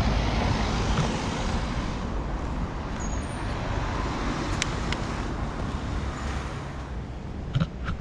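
Road traffic: cars driving past on a town street, a steady rushing of engines and tyres that is loudest at the start and slowly fades away. A few light clicks come in the second half.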